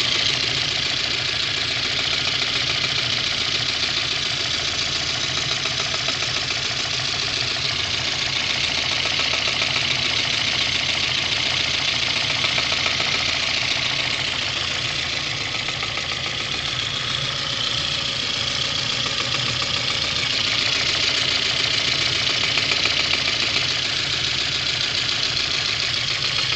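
VAZ-2109 four-cylinder engine running steadily with a small knock coming in about once every six or seven strokes. The owner doesn't know its cause; reworking the camshaft bearings did not cure it.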